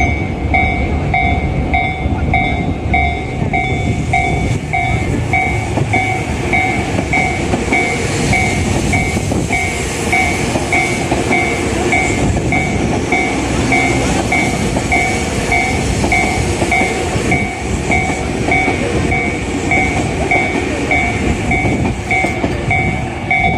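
A Japanese railway level-crossing warning bell rings on and on in an even, repeating electronic ding. Under it a Tokyu 5000 series electric train rumbles through the crossing without stopping, its wheels clattering over the rails, with the train noise fullest around the middle.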